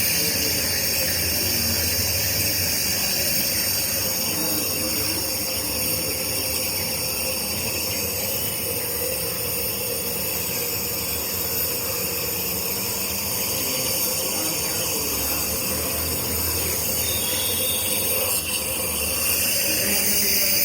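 Compressor nebulizer running steadily, a constant motor hum with hiss.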